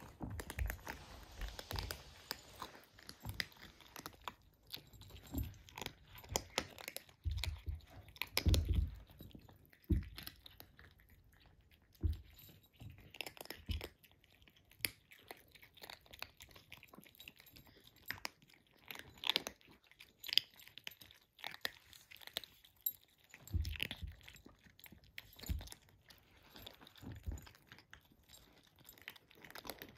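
Kittens eating dry kibble: irregular crunching and chewing throughout.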